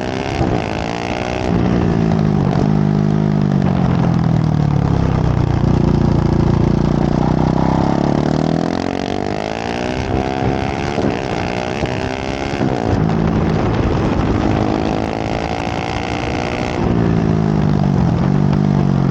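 KTM 690 SMC R's LC4 single-cylinder engine through a full LeoVince exhaust under hard acceleration. Its pitch climbs and drops back several times as it shifts gears, over steady wind noise.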